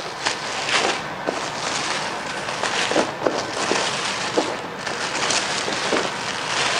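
Protective cap film being peeled off a sheet of gold chrome vinyl wrap film: a steady crackling peel with many sharp snaps.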